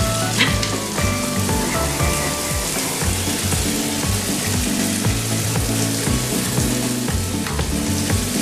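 Shower spray hissing steadily onto the cat during its bath, over background music.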